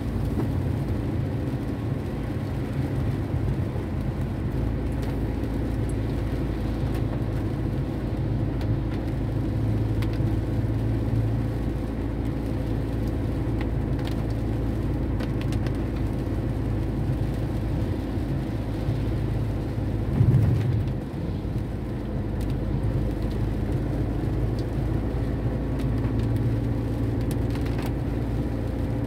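Car cabin noise while driving in rain: a steady low engine and tyre hum on a wet road, with scattered light taps of raindrops on the windshield. A brief louder bump comes about two-thirds of the way through.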